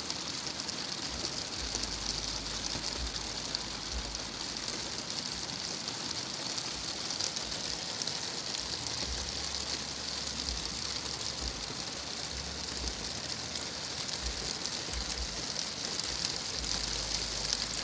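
Rain falling steadily, a dense even hiss of many drops with no let-up.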